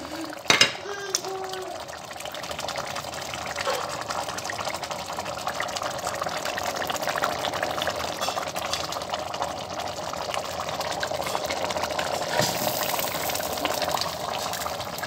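A pot of spinach soup boiling: steady bubbling with many small pops and crackles.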